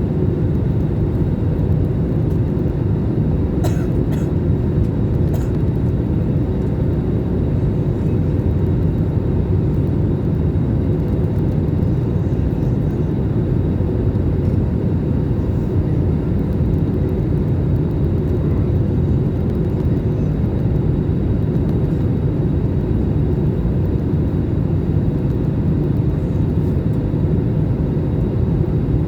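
Steady low rumble of a jet airliner's engines and airflow, with a faint steady hum in it. A few light clicks come about four to five seconds in.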